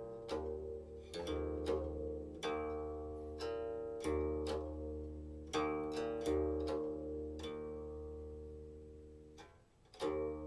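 Silk-string guqin playing slowly: a string of single plucked notes, each ringing and fading, growing sparser until one note dies away almost to nothing, then a final strong pluck near the end.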